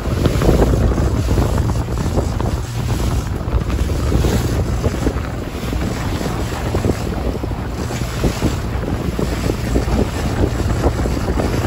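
Outboard-powered boat running over choppy sea: a steady low engine drone under heavy wind buffeting on the microphone and the rush and slap of water along the hull.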